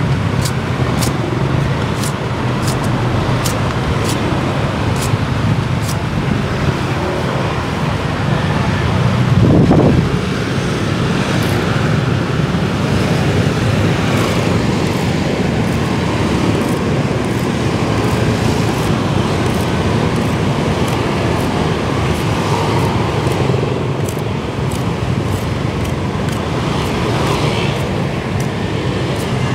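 Steady street traffic of motorbikes and cars, with one vehicle passing close about ten seconds in. Over it come short light scraping ticks, about two a second, near the start and again near the end, as a knife strips the bark from sugarcane stalks.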